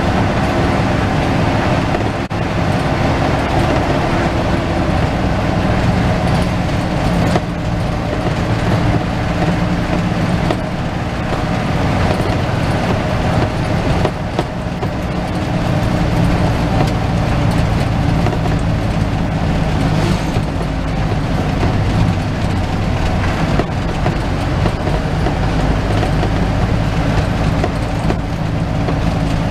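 Inside a medium bus: its engine running steadily over the cabin's low road and body rumble, the engine note drifting slowly up and down in pitch.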